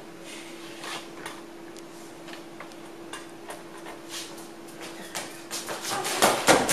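Scattered small clicks and knocks over a faint steady hum, then an audience starting to clap near the end, the clapping swelling quickly.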